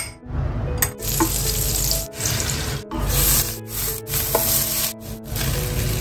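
Food sizzling in oil in a frying pan while it is stirred, a steady hiss that breaks off and starts again several times, with soft background music under it.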